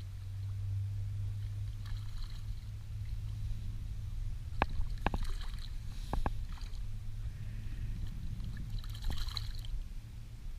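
Water lapping against an inflatable boat's hull over a low steady hum, with a few sharp clicks around the middle.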